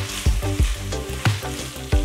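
Spaghetti with bacon and canola flower sizzling in a frying pan as it is tossed and stirred with metal tongs, over background music with a steady beat.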